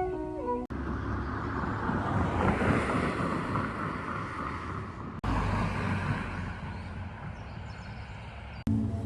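Steady outdoor rushing noise with wind buffeting the microphone, made of short clips joined by abrupt cuts about five seconds in and near the end.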